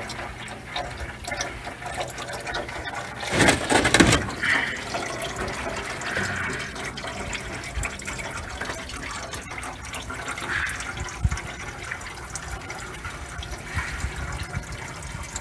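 Used engine oil pouring from the oil pan's drain hole into a drain pan, a steady splashing stream. A brief louder burst of noise comes about three and a half seconds in.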